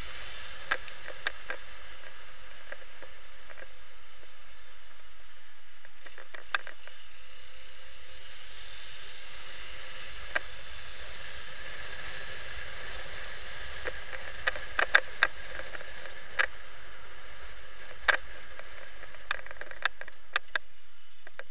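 Motorcycle ride heard through a handlebar-mounted camera's housing: a steady muffled hiss with no clear engine note, broken by sharp knocks every few seconds, several close together about fifteen seconds in.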